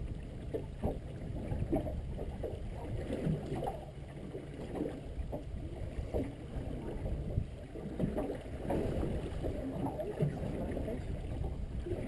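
Sea water lapping and slapping irregularly against the hull of a small drifting fishing boat.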